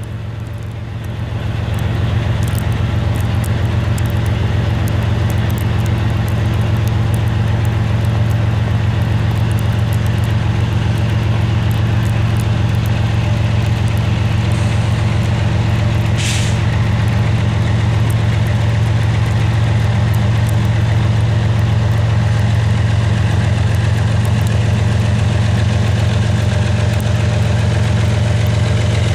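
Steady low engine drone that holds an even level, with a brief hiss about sixteen seconds in.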